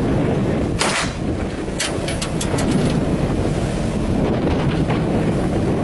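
Wind buffeting the microphone and water rushing past the hull of a patrol boat under way at speed. About a second in comes a brief burst of crackle, then a quick run of short sharp clicks between about two and three seconds in.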